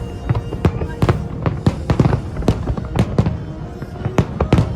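Aerial fireworks bursting: a rapid, irregular string of sharp bangs, several a second, over a continuous low rumble.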